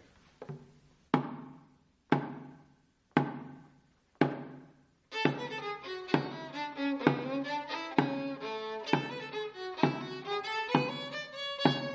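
A drum counts in with four slow beats about a second apart, each ringing out, then a fiddle enters with a march tune about five seconds in, the drum keeping time on the beat.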